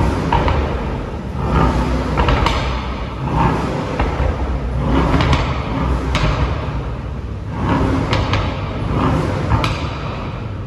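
Brabus Rocket GT 900's twin-turbo V8 being revved through its Brabus performance exhaust, a deep rumble that swells and falls repeatedly with cracks and pops on the overrun. The engine is not yet fully warmed.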